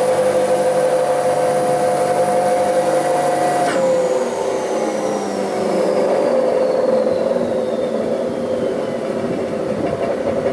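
Bäuerle spindle moulder running with a steady whine, then switched off about four seconds in and coasting down, its whine falling slowly in pitch as the spindle and cutter slow.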